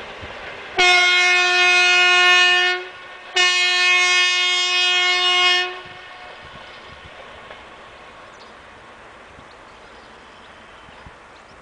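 Class 642 diesel shunting locomotive sounding its horn: two long, steady blasts of about two seconds each, a brief gap between them. After that the locomotive's running grows fainter as it draws away.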